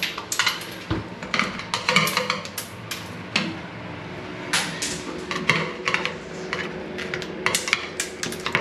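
Screwdriver working on the metal frame of a shower screen: an irregular run of light metallic clicks and scrapes as cover caps are prised off and screws are undone.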